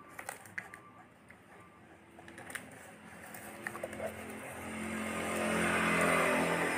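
A motor vehicle engine growing steadily louder, as if passing close by, with a few sharp clicks and knocks in the first few seconds.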